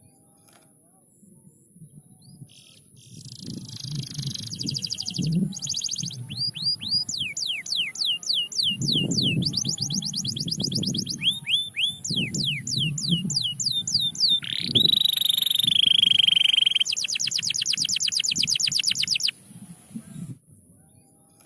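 Domestic canary singing a long song of fast trills, starting a couple of seconds in. Rapid runs of repeated high sweeping notes give way to a held buzzing note about two-thirds through, then one more fast rolling trill that breaks off a couple of seconds before the end.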